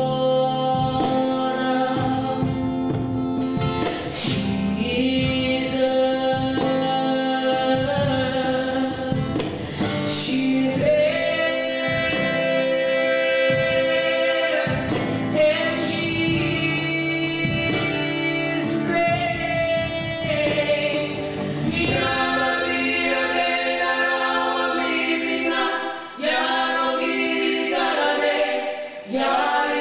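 A live acoustic song: a woman sings the lead, with men's harmony voices, over a strummed acoustic guitar and a cajon beat. After about 22 seconds the beat thins out, and the voices carry the song more on their own to the end.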